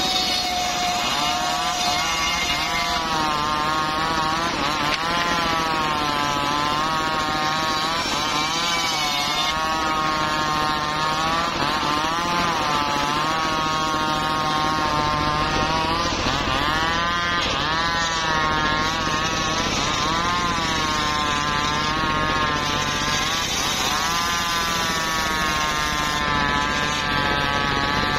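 Engine-driven home-built circular saw bench ripping teak planks: the blade's whine keeps dipping and rising in pitch as the wood is pushed through and the load changes, over the engine's steady running.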